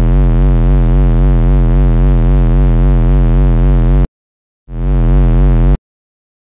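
Loud, low electronic buzzing drone whose pitch wavers up and down several times a second. It cuts off suddenly about four seconds in, comes back for about a second, and stops abruptly.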